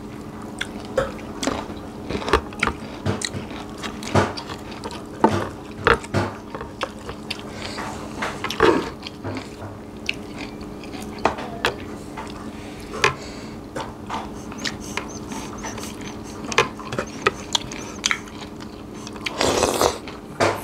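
Close-up mouth sounds of eating by hand: chewing and lip smacks on rice and fried fish, with many small clicks, over a steady low hum. There is a louder breathy rush near the end.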